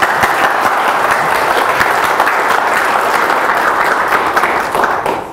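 Audience applauding, a dense, steady clapping that dies away near the end.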